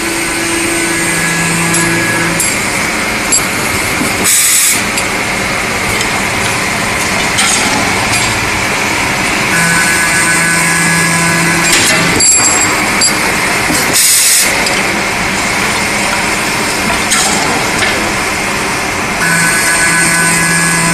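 Keensaw automatic tube cutting and chamfering machine running through its repeating cut cycle: steady machine noise with a humming tone for about two seconds three times, roughly every ten seconds, and a short hiss twice in between.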